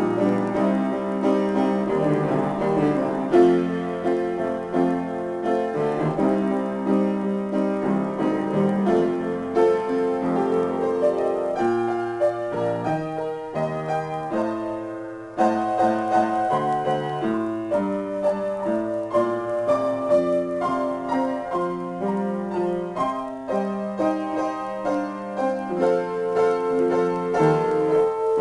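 Solo piano improvisation, notes and chords played continuously and ringing into one another, with a short lull a little past halfway before the playing picks up again.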